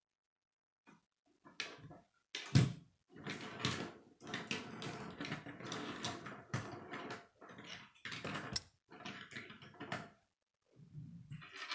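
K'nex plastic rods and connectors clicking and clattering as they are handled, snapped together and set down on a wooden tabletop, in irregular bursts with a sharper knock about two and a half seconds in.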